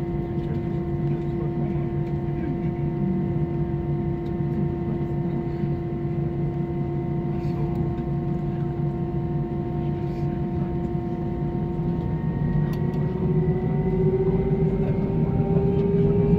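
Airbus A321's jet engines heard from inside the cabin: a steady whine over a low rumble as the airliner taxis, then from about twelve seconds in the whine rises in pitch and grows louder as the engines spool up for the take-off run.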